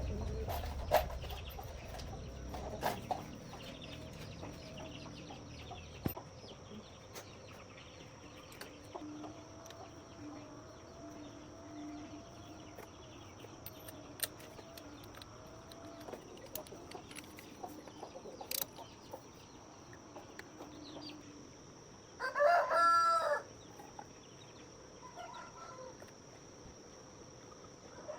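A rooster crows once, loud and about a second long, about two-thirds of the way in. Under it there is a steady faint high-pitched tone, a low rumble that fades out over the first few seconds, and scattered light taps.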